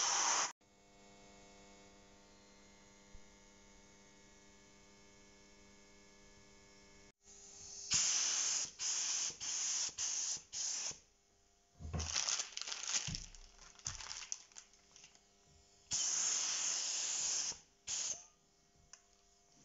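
Aerosol spray paint can spraying in short bursts, speckling black over a white coat: about six quick sprays a little after the middle, a few more with light knocks, then one longer spray of about a second and a half near the end. Before the spraying starts, a faint steady hum holds for about seven seconds.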